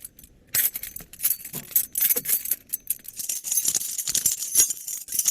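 A bunch of keys jangling: a quick, irregular run of metallic clinks that starts about half a second in.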